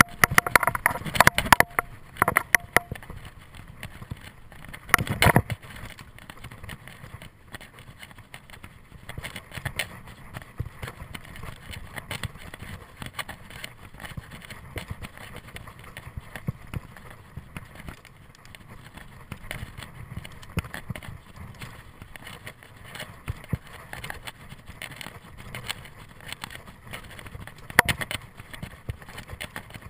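Mountain bike rolling over a dirt singletrack: tyres on dirt and the bike rattling and clicking over bumps. The rattling is heaviest in the first few seconds, with a hard knock about five seconds in and another near the end.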